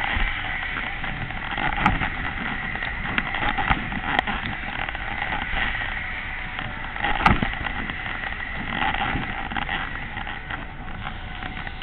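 Skate Jumper fairground ride heard from a seat on it as it swings: a steady rushing noise with a few sharp clanks, the loudest about seven seconds in.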